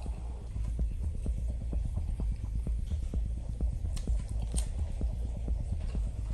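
Close-miked chewing of a loaded deli sandwich: a steady run of wet mouth clicks, about four or five a second, over a low rumble.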